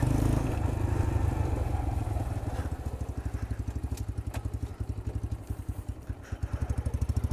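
X-PRO 125cc sportbike engine chugging as the bike slows to a stop, settling into a rough, pulsing idle with each firing stroke distinct, then picking up again near the end. The rider takes the rough running to be a sign it is out of gas.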